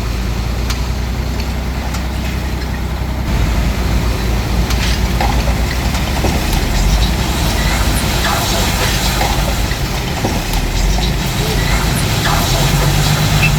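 Diesel engine of a Hitachi DX45M bulldozer running steadily under load, with scattered clanks and scraping as rock and debris are pushed. The engine note changes near the end.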